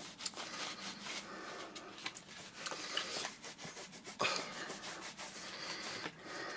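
Damp cloth wiping and rubbing over the plastic parts of a bagless vacuum cleaner in repeated short strokes, with a sharper knock about four seconds in.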